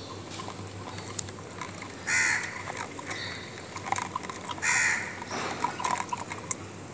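Two harsh crow caws, about two and a half seconds apart, over small clicks and licking from a dog eating out of a bowl.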